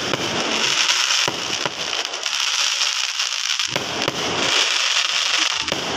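Aerial fireworks bursting overhead: a dense, continuous crackle of sparks, with several low booms spread through it.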